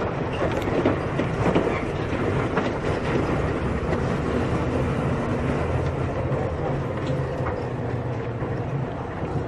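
Engine of a Volkswagen Volksbus 17.230 EOD city bus running steadily on the move, heard on board, with body rattles and a few sharp clicks in the first few seconds.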